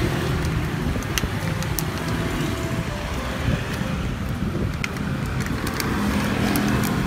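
Steady road-traffic rumble with some wind on the microphone, and a few light clicks as clear plastic lids are pressed onto plastic drink cups.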